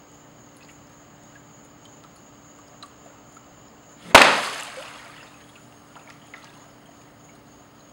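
One loud splash in water about four seconds in, dying away over about a second, with a few faint drips and ticks around it.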